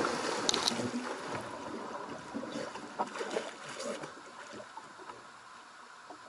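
A person falling overboard off the bow of a bass boat: a big splash right at the start, then water sloshing and lapping against the hull, dying away as the water settles.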